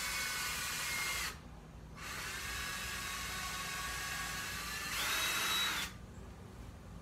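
Cordless drill running slowly as it bores a small pilot hole for a nail through a wooden peg. It stops briefly a little over a second in, starts again, then speeds up to a higher whine near the end before stopping.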